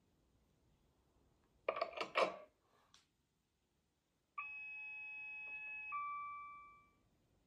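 Class 66 model's DCC sound decoder playing cab start-up sounds through its small speaker: a quick cluster of clicks and knocks about two seconds in, then a steady electronic warning tone for about a second and a half that gives way to a single chime ringing out and fading.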